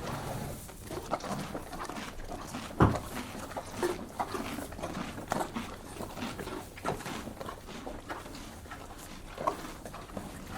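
Horse chewing a crunchy carrot: irregular crunching, with one sharp, louder knock about three seconds in.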